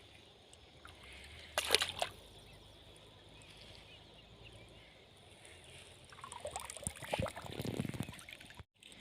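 Water sloshing and splashing at the river's edge, with one short, loud splash or clatter about two seconds in and more irregular splashing near the end.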